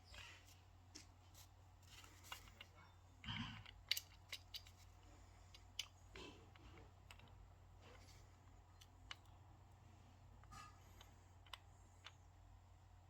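Faint, scattered clicks and short scrapes from small parts being handled, over a low steady hum; the sharpest click comes about four seconds in.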